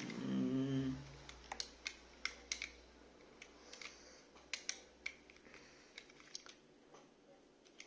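Irregular sharp clicks and small snaps of a plastic Beyblade launcher being handled as a loose gear is pushed back into it from the side. A short hummed voice sound comes at the very start.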